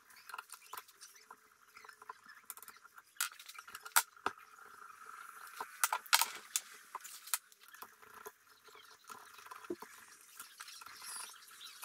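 Faint, irregular clicks and light scrapes of hand tools on metal: a 9 mm open-end wrench and a 7 mm socket loosening the fuel lines and fuel pump of a Solex 3800 moped engine.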